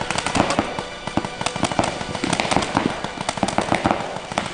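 Dense, rapid, irregular popping and cracking, several sharp pops a second with no pause.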